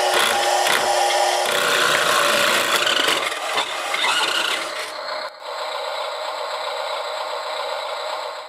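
Toy RC truck's small electric motor and plastic gearbox running as it climbs the ramp onto a plastic lowboy trailer, its rough, grinding whir mixed with tyres rubbing on the plastic deck. About five seconds in this gives way to a steadier, even noise that cuts off suddenly.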